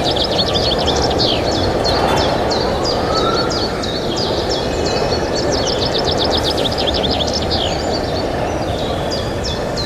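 Many birds chirping, short quick downward calls repeated throughout, over a steady low rumbling noise.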